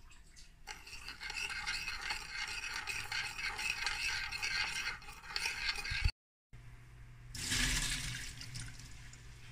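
A metal spoon scraping and stirring sauce in a ceramic bowl, with dense scratchy ticks for about five seconds. After a short break there is a steady low hum, and water splashes loudly for about a second onto shredded cabbage in a metal bowl.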